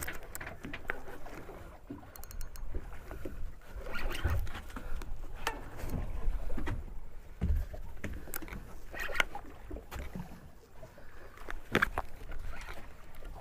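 Sounds aboard a small fishing boat at sea: water slapping against the hull, with heavier thuds twice, and scattered knocks and clicks from gear on deck.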